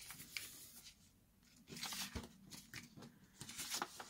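Sheets of coffee-dyed paper rustling and crinkling as they are handled and lifted, in short faint bursts, with a light knock on the table about two seconds in.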